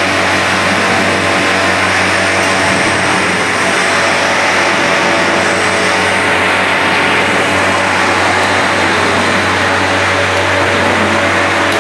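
Semi-automatic snack-frying line running: a loud, steady, broad hiss over a low steady hum.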